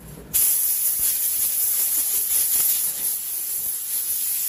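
Steady, loud hiss of a pressurised jet, starting abruptly about a third of a second in and holding even throughout.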